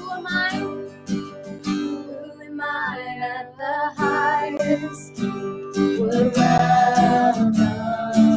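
Acoustic guitar strummed while a woman and a boy sing together, with a long held note from about six seconds in.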